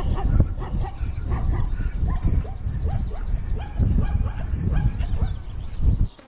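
Repeated short yelping cries from the prey animal held in a leopard's jaws, over a constant low rumble; the sound cuts off suddenly near the end.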